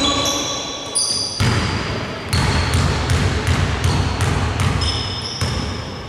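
Basketball bounced repeatedly on a hardwood gym floor, about two bounces a second, each one echoing in the hall.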